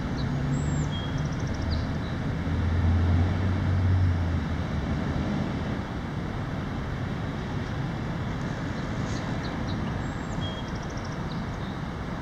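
Steady road traffic noise, with one vehicle's low engine drone swelling about two seconds in and fading away about five seconds in as it passes.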